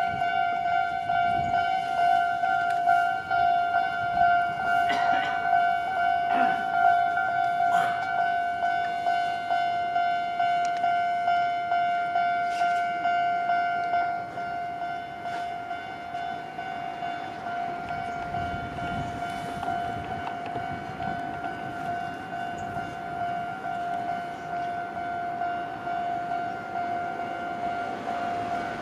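Japanese railway level crossing warning alarm ringing steadily, a repeating electronic bell tone, with a train's running noise rising underneath in the second half.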